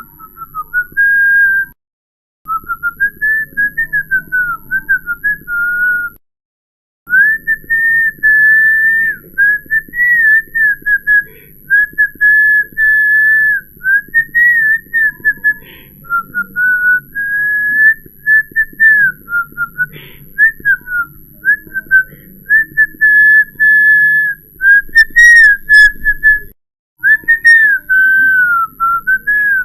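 A person whistling, a single clear tone sliding up and down between short held notes in a meandering line. It cuts out briefly twice early on and once more near the end.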